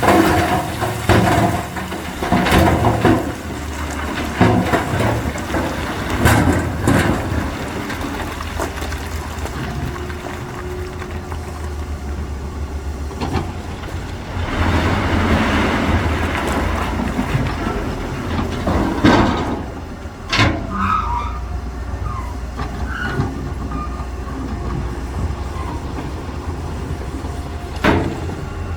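Doosan excavator working: its diesel engine runs with a steady low rumble while the machine gives repeated sharp metal clanks and knocks, and a rush of spilling material about halfway through.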